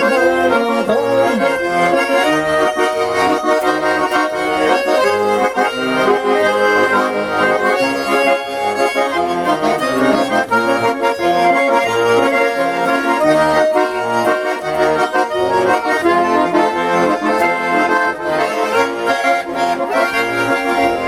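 Bayan and garmon playing together in an instrumental break of a Russian song. A melody on sustained reedy chords runs over a regular oom-pah beat of bass notes from the left-hand buttons.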